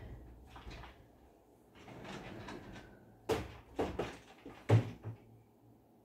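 Mirrored sliding wardrobe doors being moved. A soft rolling noise runs for about a second, then come four sharp knocks as the panels bump against each other and the frame. The third knock, a little before the end, is the loudest, with a dull thud.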